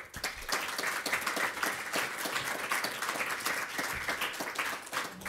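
Audience applauding: many hands clapping together, starting suddenly and holding steady.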